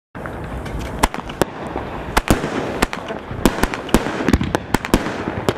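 Celtic Fireworks 'Bronze Age' barrage cake firing: sharp cracks of bursting shots, about two a second at irregular spacing, over a steady hiss.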